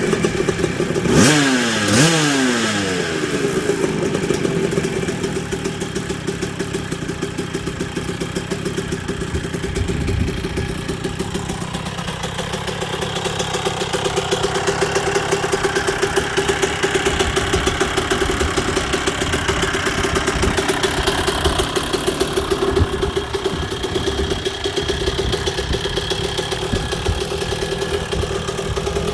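Two-stroke single-cylinder engine of a 1984 Yamaha YZ125L motocross bike running after its rebuild: the throttle is blipped twice in the first couple of seconds, revs rising and falling, then it settles into steady running.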